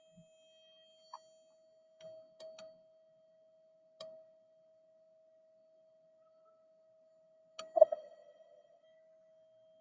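A steady, pure 639 Hz solfeggio tone holding one pitch, broken by a few soft clicks and knocks and one louder knock with a brief rattle just before eight seconds in.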